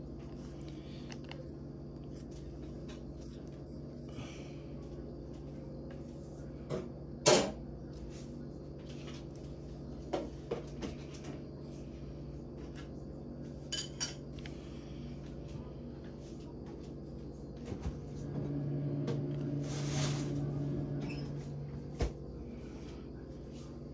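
Scattered clicks and taps of a rigid plastic card holder and a trading card being handled while the card is worked into the holder, the sharpest click about seven seconds in, over a steady low hum.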